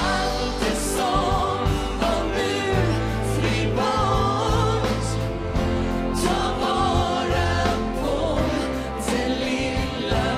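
A live pop band playing drums and electric guitar, with a woman and a man singing a duet.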